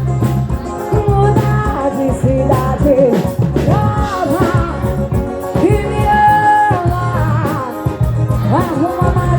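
Loud music with a singing voice over a steady, pulsing bass beat.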